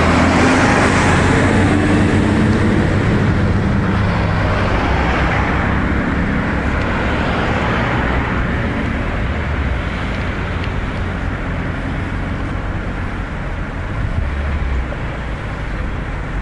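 Engine and road noise heard from inside a moving vehicle, with a large truck passing close by at the start. The noise eases gradually after that.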